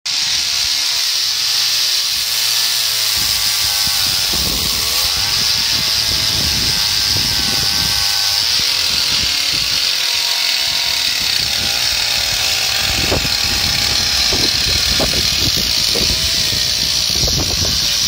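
Chainsaw on an Alaskan mill ripping lengthwise through a large ash log, running steadily under load with its pitch wavering slightly as the chain cuts.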